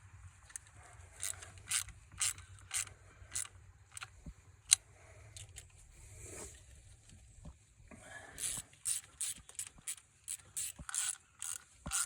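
Hand ratchet wrench clicking through repeated short strokes, with one sharper, louder click about five seconds in and a quicker run of clicks in the last few seconds.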